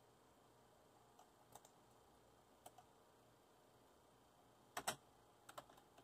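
A few scattered, faint computer keystroke clicks, with a louder pair of clicks about five seconds in.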